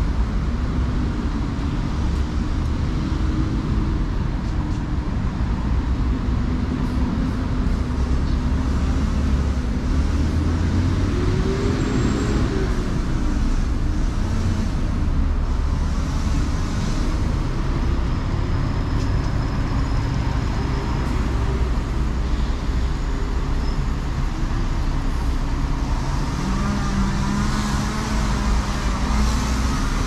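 A motor vehicle engine running steadily over a constant low rumble, its note wavering up and down.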